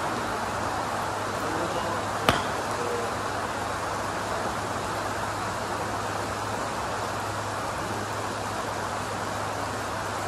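Steady hiss of falling rain with a low hum underneath, and a single sharp click of a golf club striking a ball about two seconds in.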